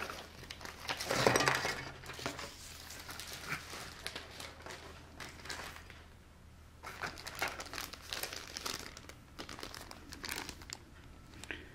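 Clear plastic bags of model kit parts crinkling and rustling as they are handled, in irregular bursts with a short lull about six seconds in.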